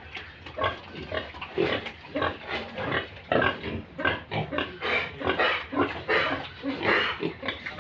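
A group of piglets grunting and squealing, with many short calls overlapping at several a second.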